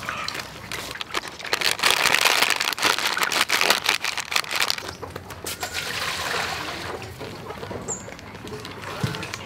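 Plastic packet of crispy flour crinkling and rustling as the flour is shaken out into a stainless steel bowl, loudest in the first half and then dying down.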